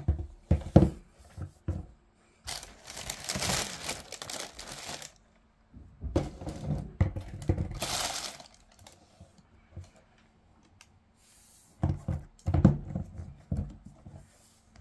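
Tissue paper crinkling and rustling in two long spells as it is handled, with knocks and taps from basketball shoes being handled and set down at the start and again near the end.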